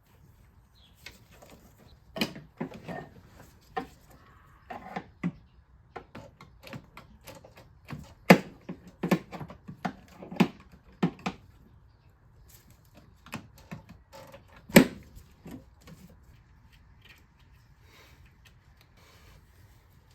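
Irregular clicks, clacks and knocks of hand tools and engine parts being worked on while hoses and connectors are taken off the engine. The loudest knocks come about 8 seconds in and again near 15 seconds.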